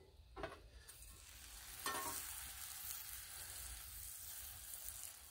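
Grilled cheese sandwich flipped on a Blackstone flat-top griddle: a couple of light knocks from the steel spatula, then the freshly turned buttered bread sizzling quietly and steadily on the hot steel.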